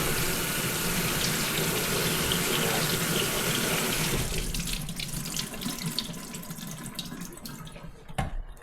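Water running from a tap into a sink, dying away about four seconds in, followed by light clicks and knocks and one sharper knock near the end.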